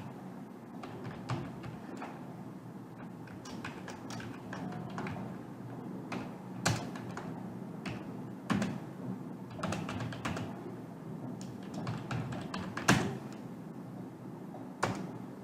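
Computer keyboard typing: irregular key clicks with a few sharper, louder strikes, over a low steady room hum.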